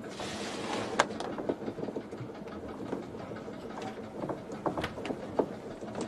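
Steady low rumble with a faint hum, dotted with scattered sharp knocks and creaks. A short rush of hissing noise comes in the first second.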